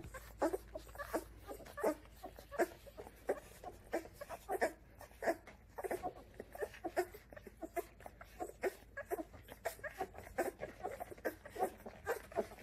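A litter of two-week-old Labrador Retriever puppies nursing: small squeaks, grunts and suckling noises coming in short, irregular bursts, several a second.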